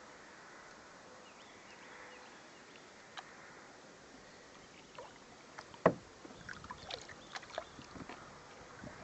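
Kayak paddling on calm water. After a quiet start, from about five seconds in there is a run of small splashes and clicks, with one sharp knock about six seconds in.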